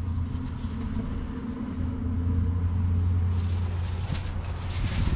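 An engine idling steadily: a low, even hum. A brief rush of noise comes about three seconds in.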